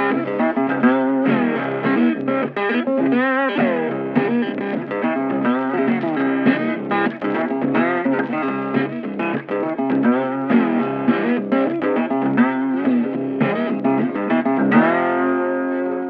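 Background music: a guitar instrumental of quick plucked notes, with a few wavering, bent notes.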